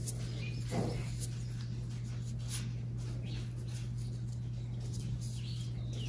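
Small paintbrush dabbing and brushing paint onto a leaf lying on paper, giving irregular soft scratchy taps, with a slightly heavier knock about a second in, over a steady low hum.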